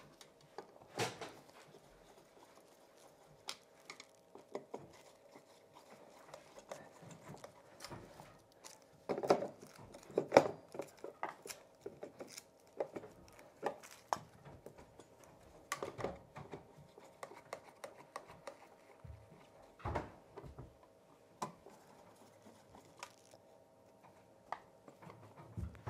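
Scattered light clicks, taps and scrapes of a hand screwdriver working the adjustment screws of a metal floor outlet box and fitting its cover, over a faint steady hum.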